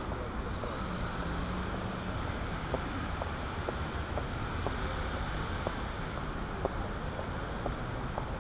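Steady outdoor city background noise, a hum of traffic with wind and handling rumble on a small handheld camera's microphone, and a few faint clicks scattered through it.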